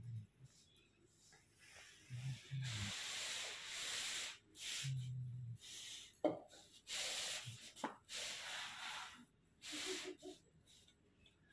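Curd being churned by hand in a clay pot with a wooden churning stick: a rough swishing rub with each run of strokes, in bursts of about a second with short pauses between them.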